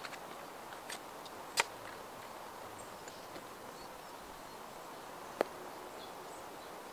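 A few sharp clicks of a tripod being opened out and its leg locks and head set, the two loudest about a second and a half in and about four seconds later, over quiet woodland background.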